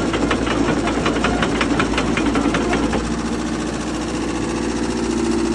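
Komatsu PC78US excavator's diesel engine running, with a regular ticking at about five beats a second. About three seconds in, the ticking gives way to a steadier hum.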